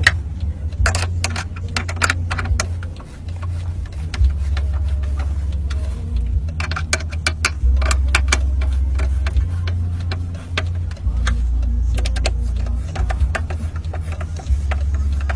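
Electric screwdriver driving in the grille's four screws, its motor running in several short bursts of a second or two, with sharp clicks in between.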